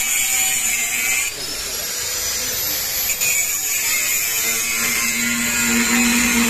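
Electric angle grinder with an abrasive disc grinding the steel housing of a truck air filter, the motor whining steadily. About a second in the whine dips and then rises again as the disc picks back up speed.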